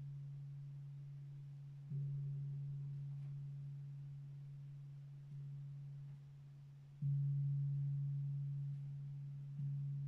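Gong struck softly with a mallet, giving a low, nearly pure tone that fades slowly between strokes. It is struck again about two seconds in, more lightly about five seconds in, and again near seven seconds and near the end.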